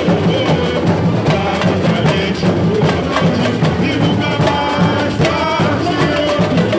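A carnival drum band (bateria) playing a driving samba beat on surdo bass drums and other hand drums, with dense, even strokes and a melody line over the drums around the middle.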